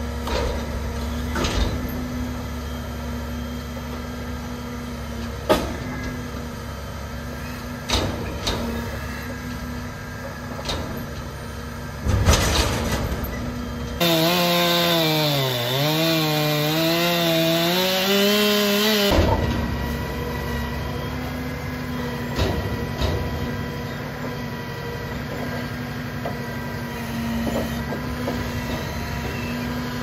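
Diesel truck engine running steady while working a hydraulic knuckle-boom grapple loader, with heavy hickory logs knocking and thudding as they are grabbed and dropped into a steel dump body. Midway, a louder whining tone dips and climbs for about five seconds as the loader works.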